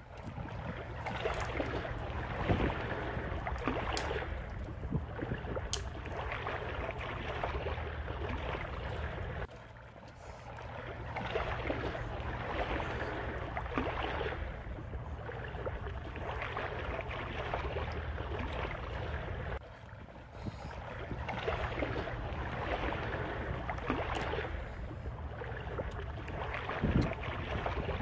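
Outdoor wind and water noise that swells and fades every few seconds over a steady low rumble, with a few sharp clicks in the first several seconds.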